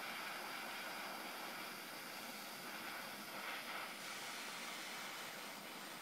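Propane torch burning with a steady hiss while its flame heats a soldered joint on heavy-gauge power terminals.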